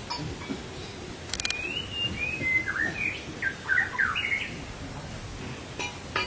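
A songbird singing a varied phrase of short whistled notes that slide up and down, lasting about three seconds from a second and a half in. A quick rattle of clicks comes just before the song, and a couple of sharp clicks come near the end.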